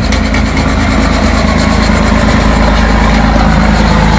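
An engine idling steadily, with the quick rasping strokes of a small hand saw cutting through the shell of a cooked giant lobster claw over the top.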